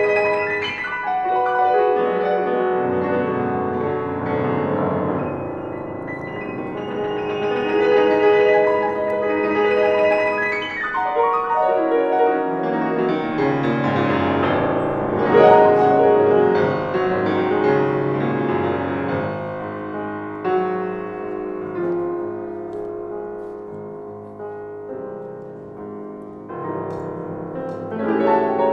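Solo grand piano played in performance, a continuous flowing passage that swells and eases, growing softer in its latter part and louder again near the end.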